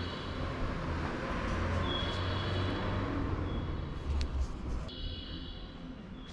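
Open-air train platform ambience: a steady low rumble of distant traffic and background noise, with short high tones recurring every second or two and a few sharp clicks a little past the middle.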